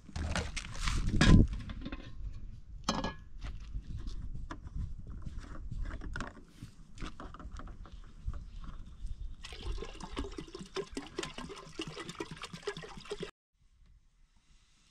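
Liquid pouring and splashing among scattered knocks and clatter; the noise thickens for the last few seconds, then cuts off suddenly.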